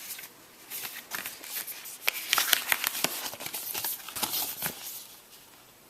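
Paper and packaging rustling and crinkling as an instruction booklet is handled out of a box, with irregular small crackles and taps, busiest in the middle.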